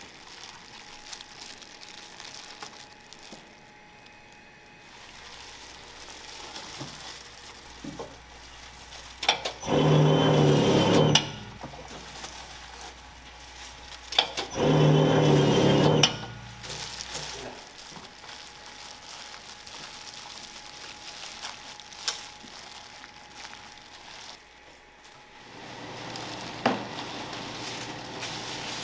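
Automatic gimbap cutting machine running twice, each run about a second and a half and starting with a click, as its motor-driven blades slice a gimbap roll.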